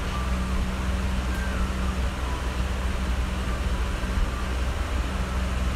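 Steady low hum with a constant hiss underneath, unchanging throughout, with no distinct events.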